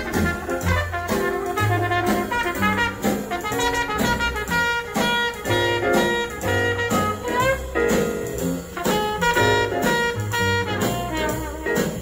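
Jazz with a brass section of trumpets, trombones and saxophones over a steady beat, played back through large Sonus Faber floor-standing loudspeakers in a listening room.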